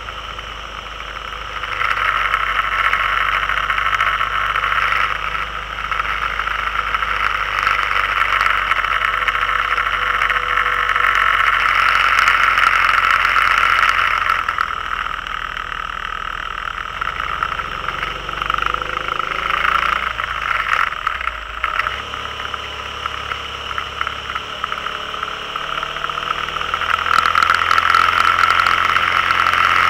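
On-board sound of a vehicle running along a winding road: a steady mix of engine and wind/road noise. Around two-thirds of the way through, the engine note slides in pitch as speed changes through the bends, and it gets louder again near the end.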